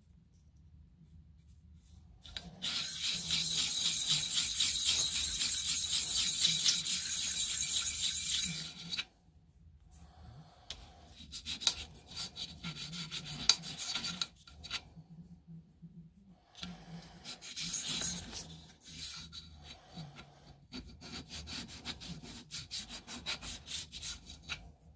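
Small brass retaining clip being rubbed by hand against an abrasive to deburr and ease its edges: a continuous rasping scrape for about six seconds, then shorter bursts of strokes.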